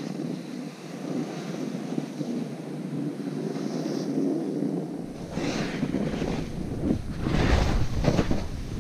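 Wind rushing over the microphone of a camera moving down a snowy slope, with the hiss of a board or ski edges sliding and scraping over snow. About five seconds in a deep buffeting rumble sets in, and the snow hiss surges louder twice near the end.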